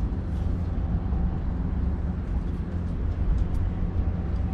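Small dinghy outboard motor running steadily under load, a low even drone as it tows a grounded sailboat off the bottom.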